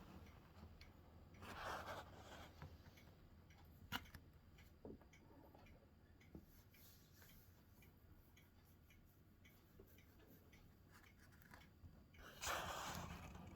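Near silence: faint low hum with a few soft clicks and two brief rustling bursts, the louder one near the end.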